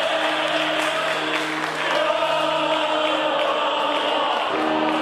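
Several male operatic voices singing together in harmony with long-held notes, over grand piano accompaniment.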